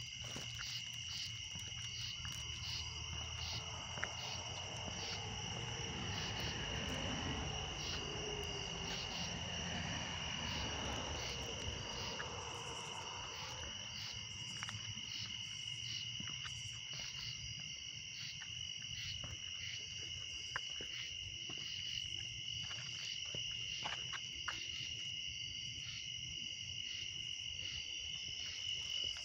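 Crickets trilling in a steady, continuous high-pitched night chorus, over a faint low rumble.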